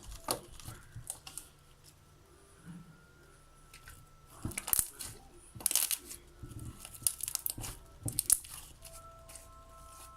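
Homemade glue-and-water jiggly slime being squeezed and pulled apart by hand, giving off irregular sticky crackles and pops in short clusters.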